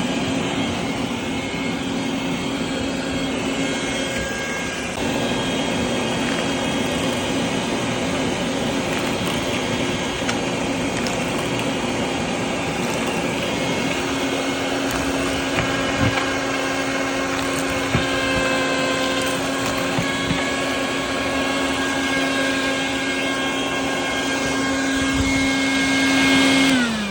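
Stinger shop vacuum running steadily with a motor hum over a rushing hiss, and a few sharp clicks along the way. Right at the end the motor's pitch falls as it is switched off and winds down.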